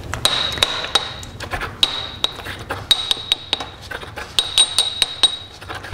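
A porcelain pestle knocking and grinding in a porcelain mortar, mixing a faecal sample with salt flotation solution for a McMaster worm-egg count. It gives a quick, irregular series of knocks, each making the bowl ring with a clear high tone, with a short lull a little past the middle.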